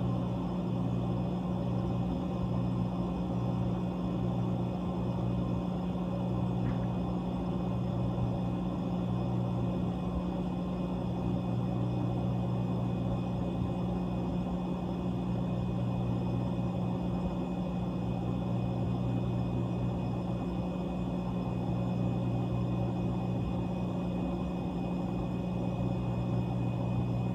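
Whirlpool ice machine's refrigeration compressor running with a steady low hum.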